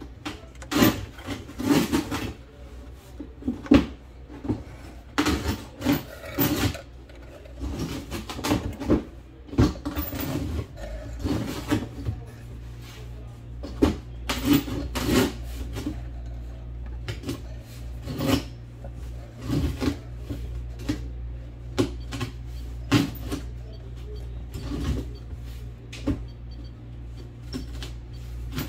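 Irregular knocks and clatter, one every second or so, over a steady low hum.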